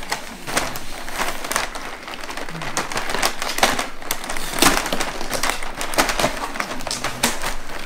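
Crinkling and crackling of stiff plastic cookie packaging being worked open by hand, the clear plastic tray and cardboard box rustling in irregular bursts.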